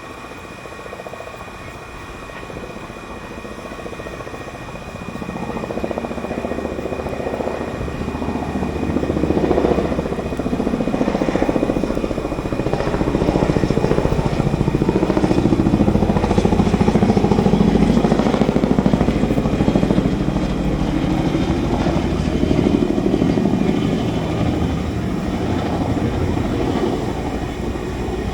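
Boeing CH-47 Chinook tandem-rotor helicopter running, its rotors beating with a low pulsing rumble. It grows steadily louder through the first half, then eases off a little toward the end.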